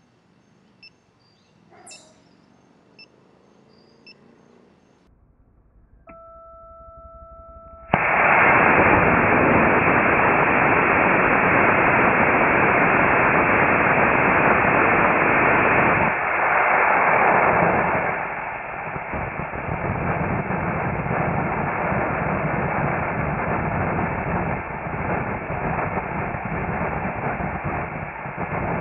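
Estes C6-5 black-powder model rocket motor firing on a static test stand, heard slowed to quarter speed: a deep rushing hiss starts suddenly about a quarter of the way in, holds loud for about ten seconds, then drops to a weaker hiss as the burn ends. Before the firing, a few faint ticks and then a steady two-tone electronic beep for about two seconds.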